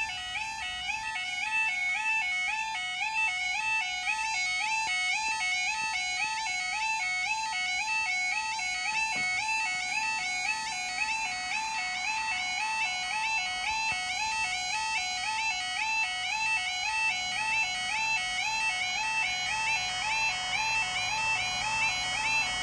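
UK level crossing yodel alarm sounding continuously as a steady two-tone warble, warning that the barriers are down and a train is approaching. A low rumble builds underneath it in the last few seconds.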